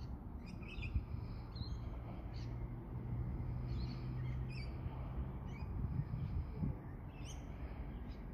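Birds chirping with short, scattered calls over a low, steady background rumble.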